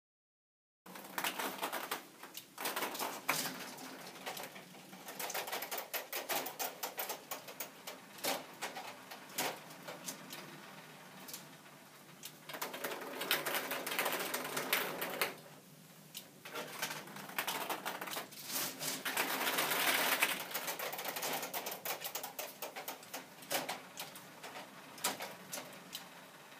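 K'Nex ping-pong ball fruit machine in play, starting after about a second of silence: its plastic mechanism clicking and rattling as it runs, with long stretches of dense clattering as ping-pong balls pay out for a win.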